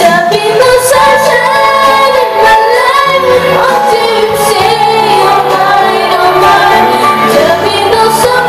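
A female voice singing a melody over an instrumental backing track.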